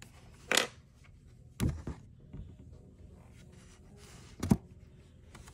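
A paperback picture book handled on a table: a brief paper swish, then two soft thumps as the book is closed and turned over onto its back cover.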